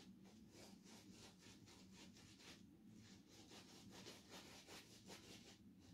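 Faint, quick brushing strokes of a shaving brush working soap lather, several strokes a second.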